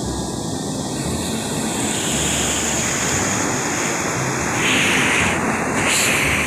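Heavy ocean surf: big waves breaking and foaming water rushing up the shore in a steady wash of noise that swells louder about five seconds in.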